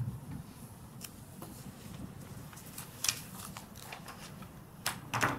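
Quiet meeting-room background with a low thump right at the start, then scattered faint rustles and clicks, such as papers and objects being handled on a table.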